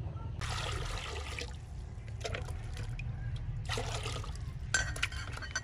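Water poured from a plastic bowl into an aluminium cooking pot, splashing in two pours, followed by a few light clinks near the end.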